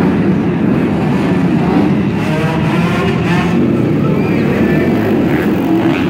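Dirt bike engines running and revving, their pitch rising and falling again and again.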